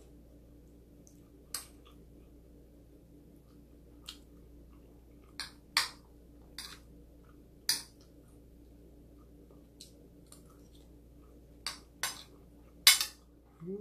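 Metal spoon clinking and scraping against ceramic plates and a bowl while eating, scattered single clinks at uneven gaps, the loudest near the end.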